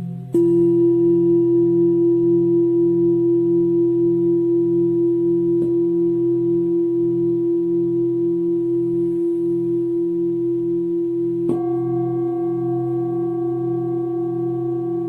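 Background music of struck singing bowls over a low, slowly pulsing drone. A bowl is struck about half a second in and rings on, with a light strike near the middle and a second, higher bowl struck near the end.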